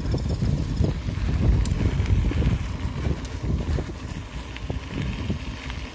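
Wind buffeting the microphone of a camera carried on a moving bicycle, over a low, uneven rumble from mountain-bike tyres rolling on a dirt road.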